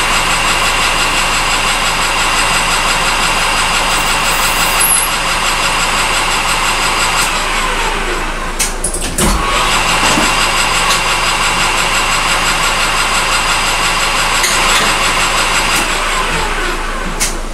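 A machine-tool spindle motor running, used for drilling holes in a plastic part. It runs in two spells of about seven seconds, each starting suddenly and winding down with a falling pitch, over a steady low shop hum.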